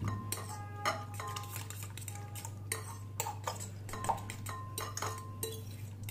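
Metal fork whisking beaten egg with chopped vegetables in a white bowl: quick irregular clinks and scrapes of the tines against the bowl, some strikes leaving the bowl ringing briefly.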